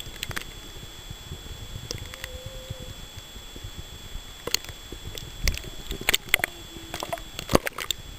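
Underwater recording with faint humpback whale song: a short, even moan about two seconds in and a lower, slightly falling one near the end. Sharp clicks and knocks, the loudest sounds, crowd into the second half.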